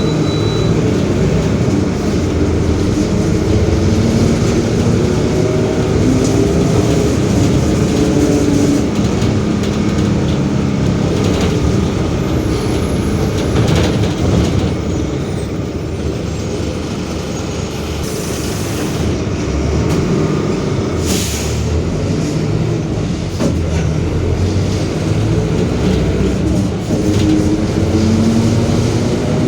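A Mercedes-Benz OF-1721 BlueTec 5 bus, heard on board while driving: its four-cylinder diesel engine and drivetrain run under load. A growling whine rises as the bus picks up speed and falls as it eases off, from a differential that is growling loudly. A couple of short hisses come a little past the middle.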